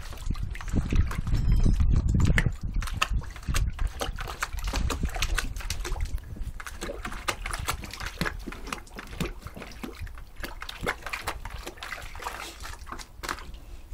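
A dog paws and splashes at water in a plastic bucket, with irregular sloshes and splashes that are loudest in the first few seconds.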